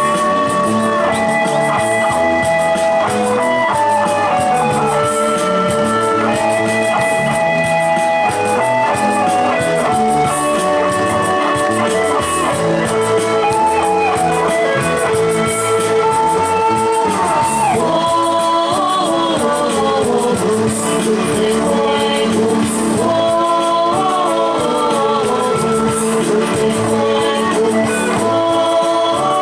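Rock song with guitar and a singing voice over a steady beat.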